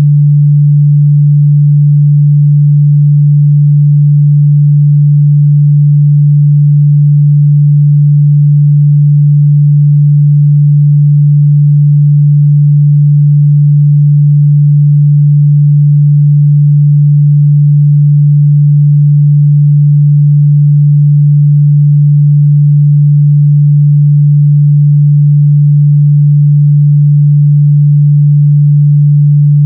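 A steady, loud 146 Hz sine-wave test tone, a single pure low hum held at constant level without change.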